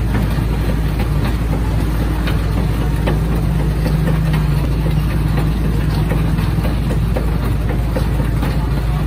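Steady low mechanical hum of a rotating refrigerated drum ice-cream machine running, with scattered light clicks.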